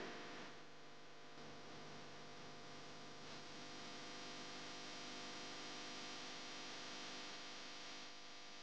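Faint steady hum of several sustained tones, swelling slightly and easing off about eight seconds in.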